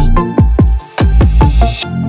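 Electronic intro music: a run of loud bass hits, each sweeping down in pitch, with a high rising whoosh building near the end.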